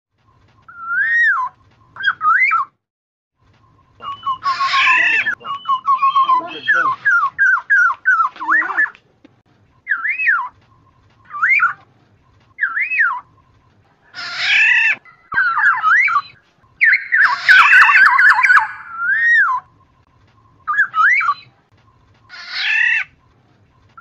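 Black-naped oriole calling: short fluty whistles that swoop up and down, mixed with harsher, raspy calls, and a quick run of repeated notes about halfway. A faint steady tone lies beneath the gaps between calls.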